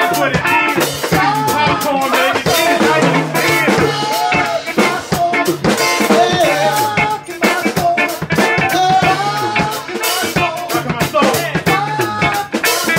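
Live band playing an upbeat groove: a drummer on a full drum kit with steady cymbal and snare hits, over a repeating bass line and a wavering melody.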